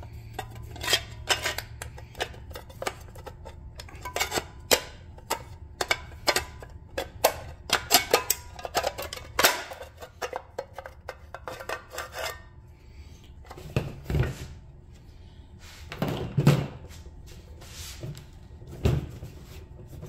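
Aluminium rewind-starter pulley of a Johnson 5.5 hp outboard being turned and jiggled by hand in its housing, giving a fast run of metal clicks and clinks as it is worked to line its hole up with the pin. After about twelve seconds the clicking stops and a few duller knocks follow.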